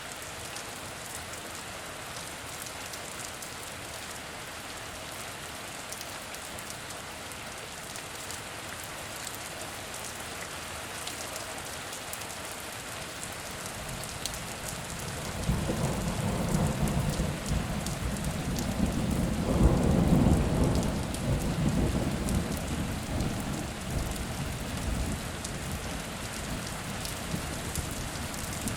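Steady rain falling and pattering on surfaces, with a long roll of thunder that builds about halfway through, peaks a few seconds later and slowly rumbles away.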